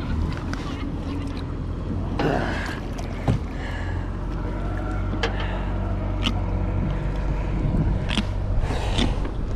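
Wind rumbling on an action camera's microphone over water lapping at a kayak, with scattered splashes and knocks as a jack crevalle is hand-lifted out of the water beside the hull.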